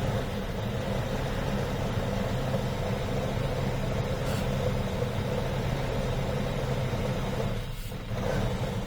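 2004 GMC Yukon's V8 idling steadily while it burns off throttle body cleaner sprayed into the intake, with a brief dip in level near the end.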